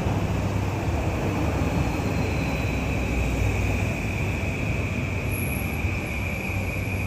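City street ambience: a steady low rumble of traffic under a continuous high, even insect drone, typical of cicadas in summer.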